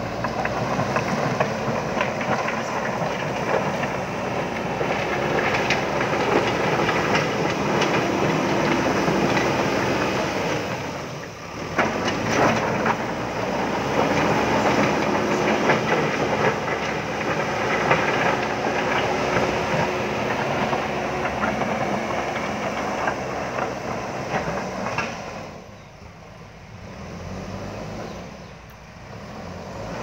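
JCB backhoe loader's diesel engine working under load while its front bucket pushes through a pile of river stones, the stones clattering and grinding against each other and the steel bucket. The noise dips briefly about a third of the way in and eases off for a few seconds near the end.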